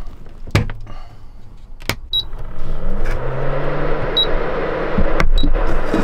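Vango portable induction hob being plugged in and switched on: a couple of clicks, then three short high beeps as its buttons are pressed, while its cooling fan spins up with a rising hum into a steady whir.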